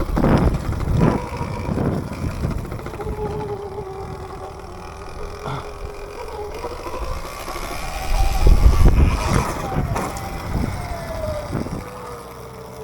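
Electric dirt bike motor whining at a steady pitch that rises and falls as the throttle changes. Loud rough rumbling of wind and ground noise comes near the start and again about two-thirds in.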